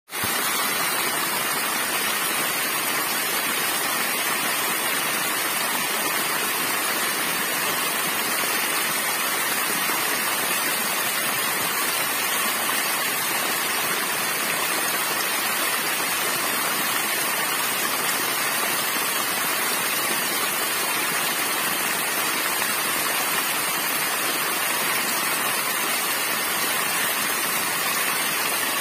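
Small waterfall: thin streams of water dropping a short way onto rocks and splashing, a steady, even rushing that is bright and hissy with little low rumble.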